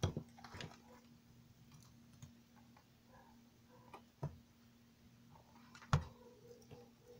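A few separate sharp clicks and light knocks as an analog multimeter and its test leads are handled and set down on a table, the sharpest near the start and about six seconds in.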